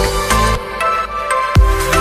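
Electronic background music; about halfway the bass thins out in a short break, and a heavy kick-drum beat comes back in near the end.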